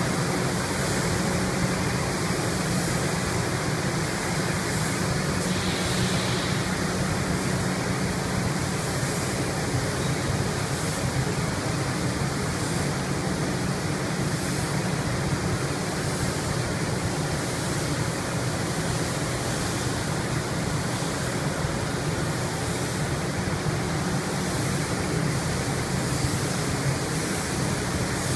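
Steady rushing hiss of spray-painting equipment: compressed air through the paint spray gun and booth ventilation running, with a low hum underneath.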